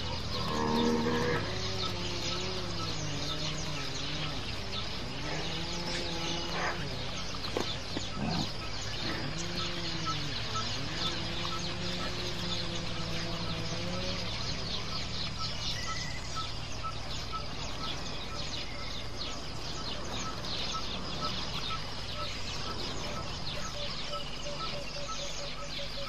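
Birds calling outdoors, with fowl-like calls that rise and fall, mostly in the first half, over a steady high hiss and a faint chirp repeating about twice a second.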